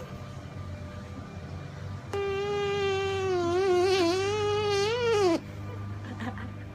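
A long, squeaky fart sound effect played from a soundboard: one sustained high tone that starts abruptly about two seconds in, wobbles in pitch toward the end, and cuts off sharply after about three seconds.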